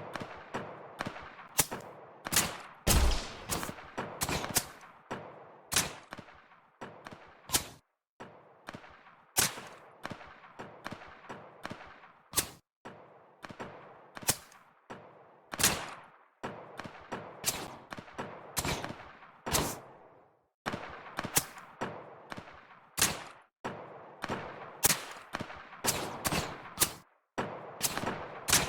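Supersonic bullet snaps: a long series of sharp, single cracks from bullets flying past, each with a short fading tail, spaced irregularly and sometimes coming in quick bunches of two or three.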